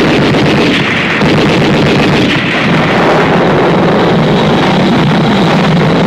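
Loud, continuous battle sound: dense gunfire mixed with explosions, without a break.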